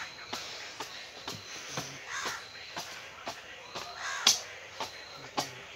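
Crows cawing a few times over a regular run of sharp ticks, about two a second.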